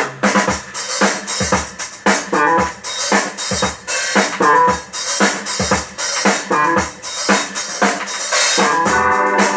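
Recorded Philadelphia soul music in an instrumental passage: a drum kit beat of bass drum and snare with pitched instruments playing over it.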